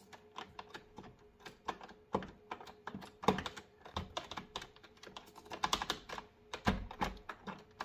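Irregular small metallic clicks and rattles of a key being wiggled left and right in a door cylinder lock, with a few louder knocks, as the new cylinder is worked back into the lock body until the key finds the position that lets it slide home.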